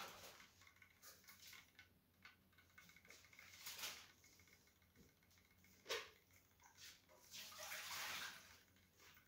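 Faint water splashing and sloshing in a glass bowl as a cat paws into it after a swimming fish toy, with a single sharp click about six seconds in.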